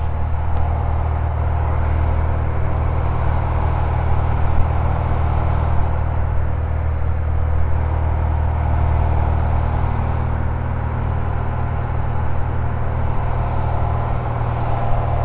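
Cessna 180's 230-horsepower Continental O-470 six-cylinder engine and propeller running steadily in flight, a constant drone heard inside the cabin.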